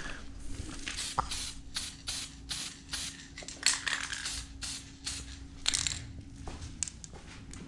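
Aerosol spray-paint can sprayed in short hissing bursts, about three a second, laying down a light first coat. A faint steady hum runs underneath.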